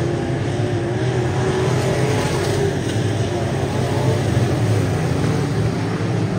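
Dirt-track race cars' V8 engines running hard at racing speed on a clay oval: a loud, steady drone.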